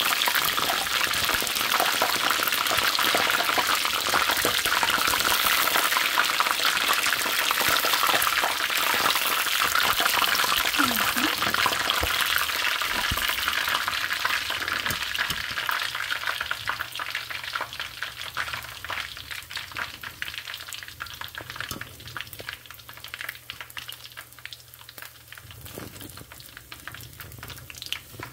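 Chicken wings deep-frying in hot oil: a dense sizzle full of fine crackles and pops. It grows quieter and sparser over the second half.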